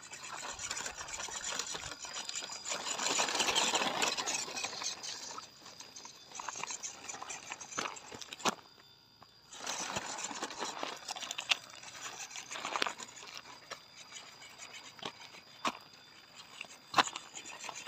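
RC scale Land Rover Defender crawler driving over loose limestone rubble: tyres crunching and stones clattering, with scattered sharp clicks and knocks. The sound cuts out briefly about halfway through.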